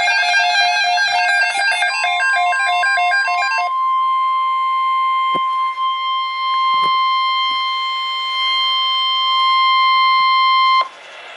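NOAA Weather Radio's 1050 Hz warning alarm tone, a single steady tone that starts about two seconds in over a run of rapidly stepping electronic alert beeps. It holds for about nine seconds and cuts off suddenly, signalling that a severe thunderstorm watch message follows.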